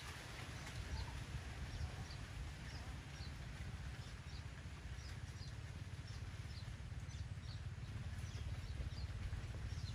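Small birds chirping, short high calls repeating every second or so, over a steady low rumble.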